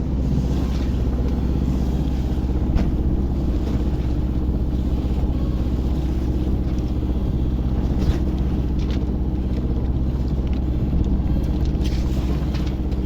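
Small sailboat under way: a steady low drone with wind on the microphone, and a few brief knocks or splashes.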